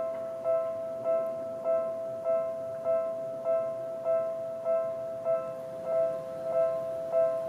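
Japanese railway level-crossing warning bell ringing. It is an electronic two-tone chime struck in an even rhythm, a little under twice a second.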